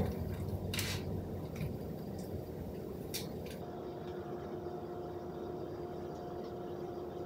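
Quiet kitchen room tone with a few faint clicks, and from about halfway a faint steady appliance-like hum.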